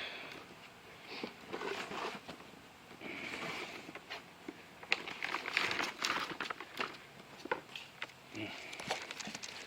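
Handling noise of the pistons and rods being picked up and moved: scattered light clicks and brief rustles.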